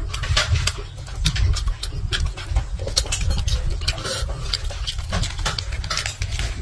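Close-up eating sounds: wet chewing and lip-smacking on meat, a dense run of short clicks and smacks, with the meat pulled apart and handled by hand.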